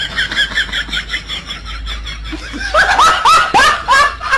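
High-pitched laughter: a fast run of short giggles, then a slower series of louder laughs near the end.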